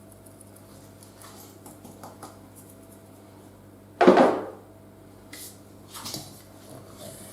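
Kitchen utensils and bowl handled on the bench: one loud clatter about four seconds in, dying away over about half a second, then a few light clinks.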